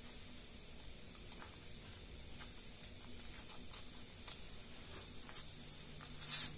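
Faint scattered clicks and rustling of craft-foam pieces being handled and pressed onto a polystyrene foam disc, with one louder brief scrape near the end.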